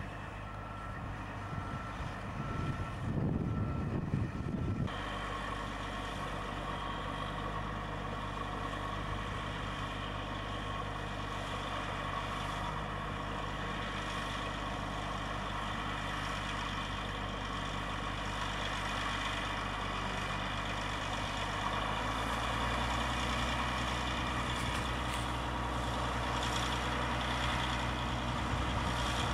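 A heavy tractor-type engine running steadily, with its low note shifting and growing stronger about 22 seconds in. For the first five seconds a short beep repeats at an even pace, then the sound changes abruptly to the engine.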